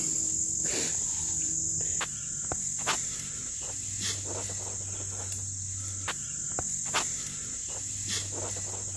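Steady high-pitched chorus of insects chirping in tall grass, with a few faint short rustles and clicks scattered through it.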